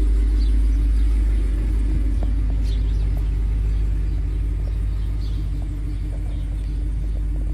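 Supercharged 6.2-litre V8 of a 2023 Cadillac Escalade ESV V-Series idling as it warms up after a cold start: a steady, deep rumble that eases slightly about a second and a half in.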